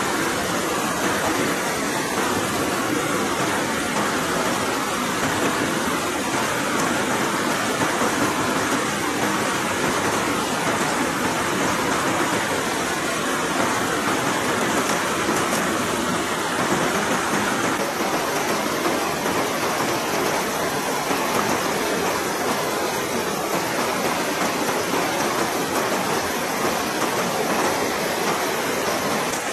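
River water rushing steadily over rocky rapids.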